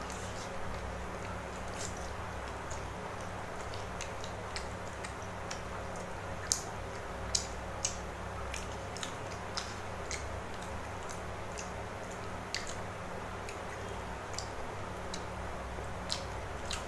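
Eating noodles at a table: chewing, with a fork and spoon clicking and scraping on a plate in irregular clicks, a few sharper ones around the middle, over a steady low hum.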